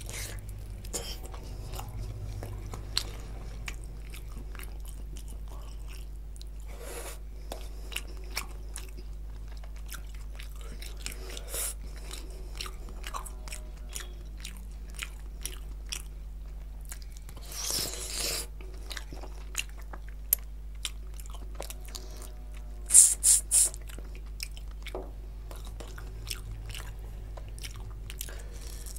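Close-miked chewing and biting of mouthfuls of mutton curry eaten by hand, with many small mouth clicks. A louder burst comes about 18 seconds in, and three sharp loud sounds in quick succession about 23 seconds in.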